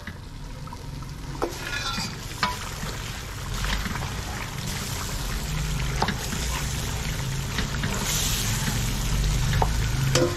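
Goose meat and gravy sizzling and simmering in a pot, the hiss slowly growing louder and strongest near the end, with a few sharp clicks.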